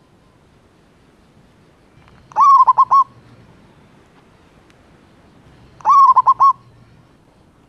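Male zebra dove (perkutut) cooing twice, about three and a half seconds apart. Each call is a rising note followed by a quick run of four or five short, clipped coos.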